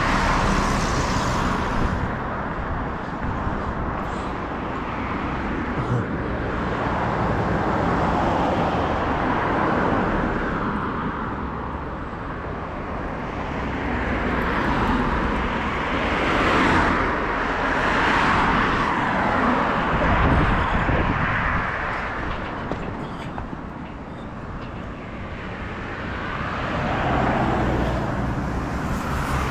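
Road traffic: vehicles passing one after another, each swelling and fading over a steady low rumble.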